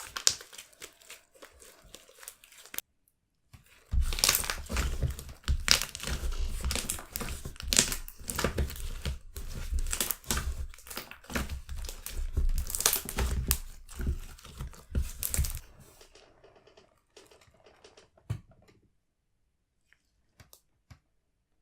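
Hand-played slime from an Elmer's Halloween slime kit being squished, stretched and pressed, giving a run of sticky crackles and small pops. The crackling is loudest and densest from about four seconds in and thins out to a few faint clicks near the end.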